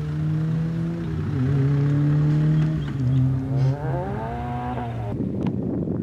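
A car engine running and revving, its pitch dipping a little and then rising about four seconds in. Just after five seconds it cuts off abruptly to wind noise on the microphone.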